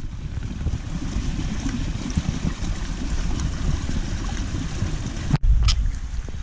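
Steady low rumble of wind on the microphone over shallow creek water, broken by a sudden drop-out about five seconds in and a short sharp noise just after.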